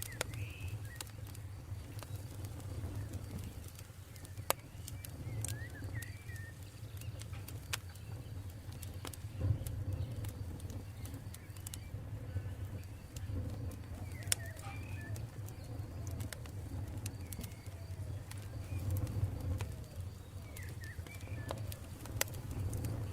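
Campfire burning with scattered sharp crackles and pops over a low steady rumble, with birds chirping now and then in the background.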